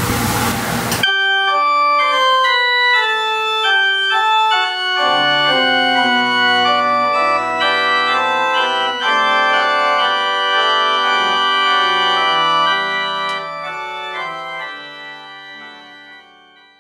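Church organ playing held chords under a moving melody, the postlude closing the service. It fades out over the last few seconds.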